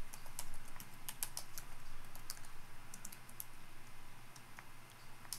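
Typing on a computer keyboard: a quick, irregular run of keystrokes that thins out and stops near the end.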